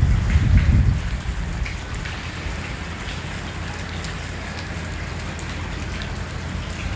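Heavy rain falling steadily, with scattered drops ticking on nearby surfaces. A louder low rumble comes in the first second, then fades.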